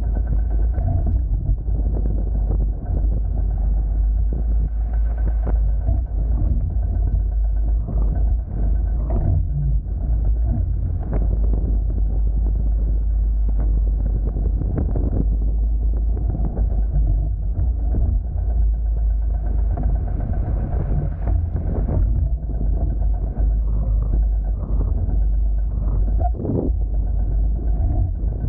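Steady low rumble of wind buffeting the camera microphone on a sailing Hobie Tiger F18 catamaran, mixed with the rush of water along the hulls.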